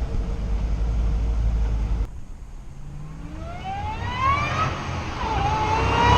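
Supercharged V8 of a Roush Mustang: a steady low rumble, cut off abruptly about two seconds in. Then the supercharger whine rises sharply in pitch as the engine revs, and it holds high and grows louder over the exhaust rumble near the end.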